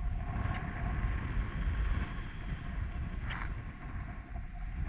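Wind buffeting the microphone in a low, steady rumble, with two brief noises about half a second and three seconds in.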